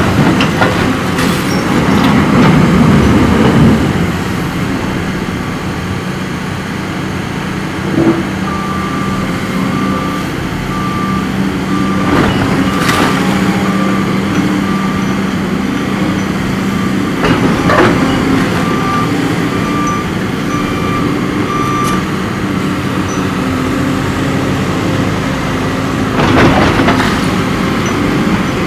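Caterpillar 330F hydraulic excavator's diesel engine running under load as its demolition grapple tears into a brick wall, with several crashes of falling masonry. A machine's reversing alarm beeps evenly through the middle of the clip for about thirteen seconds.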